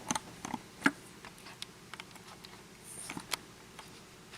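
Scattered light clicks and taps of small lock pins being handled, a little louder twice: about a second in and again about three seconds in.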